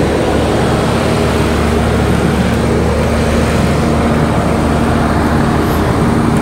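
Vehicle engine running steadily with a low, continuous rumble, as from a car on the move.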